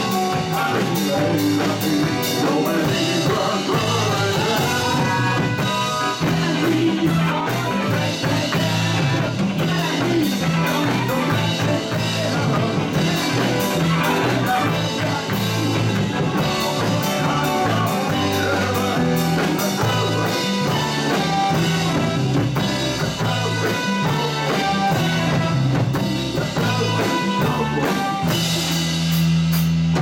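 Live rock band playing an encore: drum kit, congas, electric guitars, bass and keyboards, with a man singing lead into a microphone.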